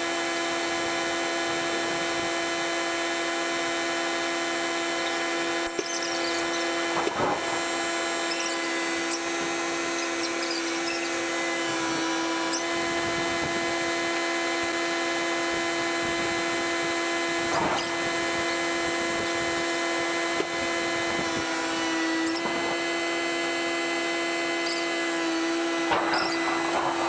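A steady mechanical whine from a running motor, with a few short knocks and clanks now and then.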